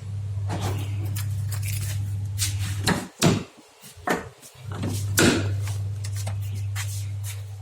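Car stereo cassette player being handled: a steady low hum that stops for about two seconds midway and comes back, with several sharp clicks and knocks of its mechanism and buttons, the loudest about halfway through.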